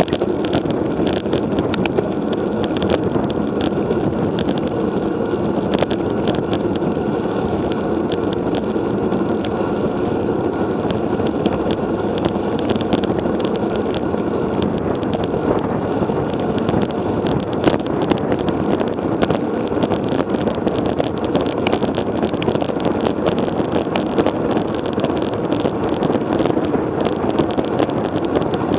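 Steady wind and road noise picked up by a camera riding on a road bicycle, a rough rumble with many small ticks and rattles throughout.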